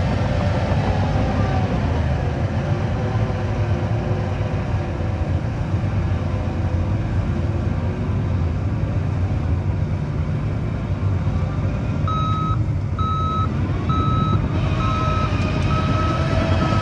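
Heavy diesel earthmoving machinery running steadily. About twelve seconds in, a reversing alarm starts beeping, about three beeps every two seconds, the sign of a machine backing up.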